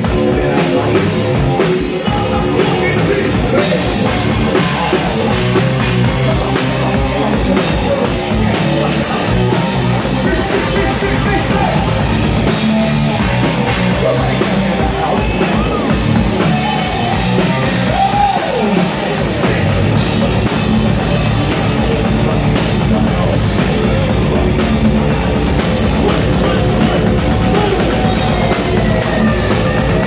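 Live rock band playing loudly on a club stage: drum kit, electric guitar and bass guitar in a dense, continuous wall of sound.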